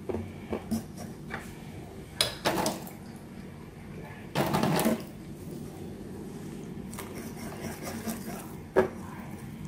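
Wire whisk stirring flour and water into a batter in a ceramic bowl: irregular soft scraping and squelching strokes with short clicks of the wires against the bowl, and a louder half-second burst about four and a half seconds in.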